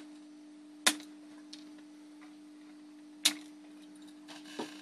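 Small flush side cutters snipping the soldered leads of a new capacitor on a circuit board: two sharp snaps about two and a half seconds apart.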